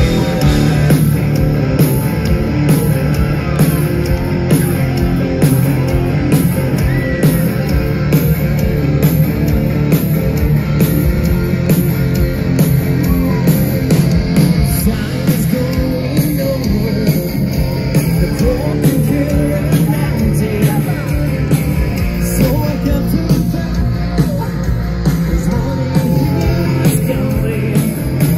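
Rock band playing a song loudly, with electric guitar, drums and singing; it comes in at full volume right at the start, a restart of the song.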